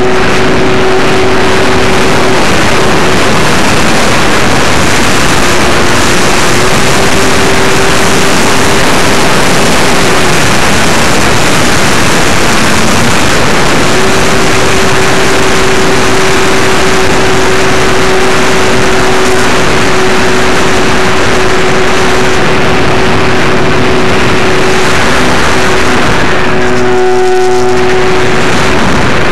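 Electric motor and propeller of an Apprentice S15e RC trainer plane humming steadily, heard from an onboard camera under loud, constant wind rush on the microphone. The motor hum fades for a few seconds about a third of the way through, then returns and shifts in pitch near the end.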